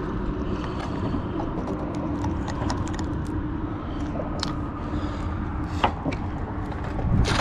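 Wind rumbling on the microphone, with a faint steady hum underneath and a few light clicks, a sharper tick about six seconds in and a thump near the end.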